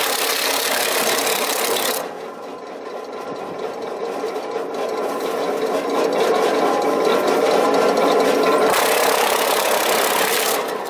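Red Dragon RP-120 wood chunker, with eight knives per shaft, chopping wood into short chunks. For the first two seconds it is loud as it bites through a fed branch. It then runs quieter with little or nothing to cut, and gets loud again near the end as a wooden plank is chunked.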